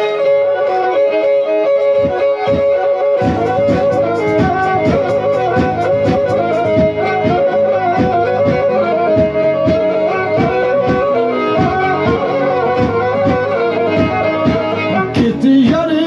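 Black Sea kemençe playing a lively folk melody, with a steady rhythmic pulse joining about three seconds in.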